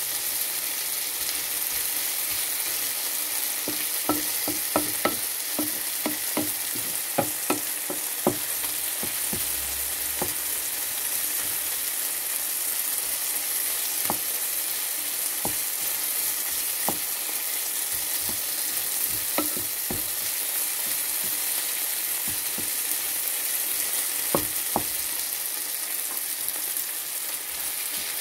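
Chopped vegetables sizzling in a frying pan with a steady hiss, while a wooden spatula stirs them and knocks against the pan: a quick run of taps about four to eight seconds in, then single taps now and then.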